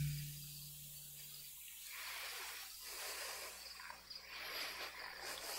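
An electric keyboard's held low note fading away over the first second and a half, then faint open-air background noise.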